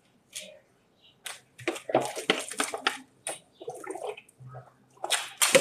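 Water in a plastic bottle swirled into a vortex and poured straight down the throat: an irregular run of short gurgling glugs and gulps, louder near the end.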